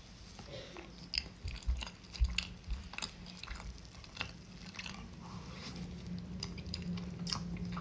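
A person chewing and biting food close to the microphone, with many small sharp clicks and crunches.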